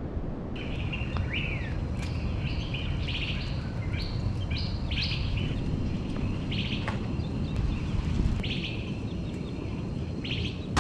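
Birds chirping: short, high calls repeated in quick runs, with a brief pause part-way through, over a steady low background noise.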